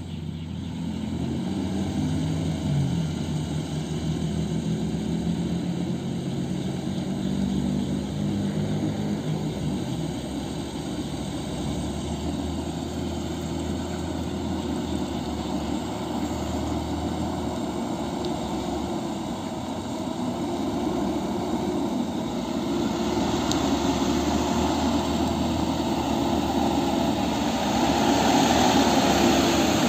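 Mitsubishi Fuso dump truck's diesel engine running as the truck crawls through mud, its note wavering early on and growing louder over the last third as it comes closer.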